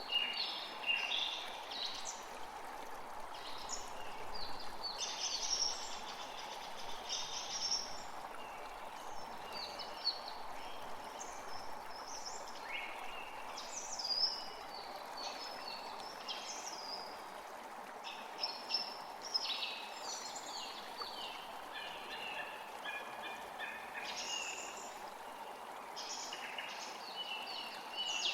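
A forest creek running steadily, with several songbirds singing and calling over it in short, frequent phrases.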